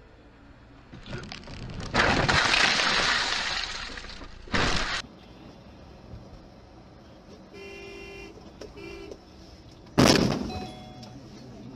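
Car crash: a loud impact with glass shattering, fading out over a couple of seconds, followed by a short second crunch. Later come two short beeps and then another sharp impact near the end.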